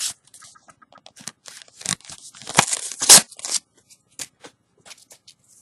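Pokémon booster pack wrapper being handled: a string of short crinkling and tearing rustles, loudest about halfway through.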